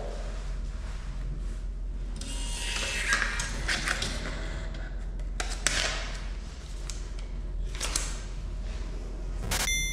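Self check-in kiosk's receipt printer running for about two seconds as it feeds out a paper slip, followed by a few sharp clicks. Near the end, a short electronic chime rings out.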